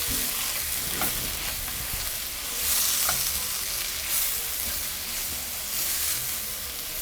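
Mushrooms sizzling in butter in a frying pan as they are stirred and tossed, a steady hiss that swells briefly a few times, with a couple of light clicks of the utensil against the pan.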